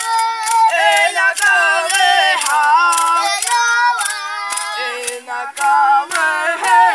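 Group of children singing a toré chant together, the melody moving phrase by phrase, with a sharp percussive beat about twice a second.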